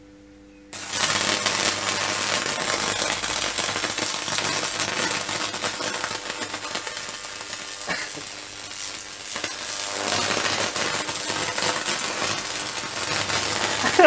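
Electric fly-swatter racket fed by a microwave oven transformer, arcing across its wire mesh. A faint transformer hum is followed about a second in by a sudden loud, continuous crackling buzz over a steady mains hum, dipping briefly about halfway. The arc burns the bug and melts a hole in the racket's wires.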